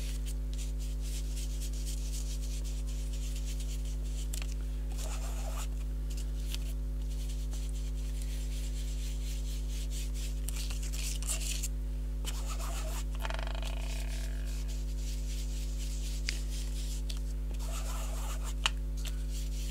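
Card edges being inked with Vintage Photo distress ink, heard as faint short rubbing scrapes every few seconds. A steady low electrical hum runs underneath and is the loudest thing.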